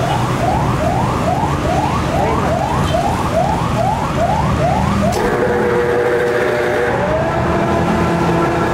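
A siren yelping in quick rising sweeps, about two a second; about five seconds in it changes to steady held tones, with one upward slide near the end. A steady low hum runs underneath.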